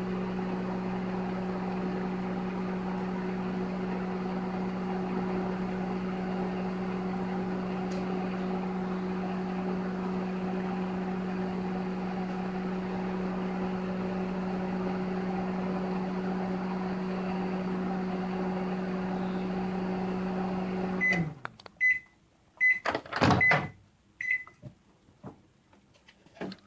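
Microwave oven running with a steady hum, then shutting off at the end of its cycle about three-quarters of the way through. Several short high beeps follow, mixed with a few loud clunks of the oven door being opened.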